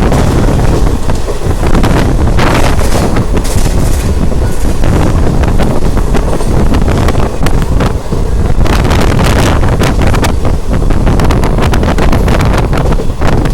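Wind buffeting the microphone over the loud rumble and clatter of a moving passenger train, heard from on board at speed.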